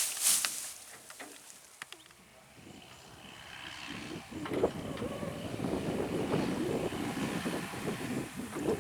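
Heavy diesel machinery engine running, building up from quiet to a loud, rough, uneven rumble about two and a half seconds in. It is either the backhoe or the rice harvester working in the mud.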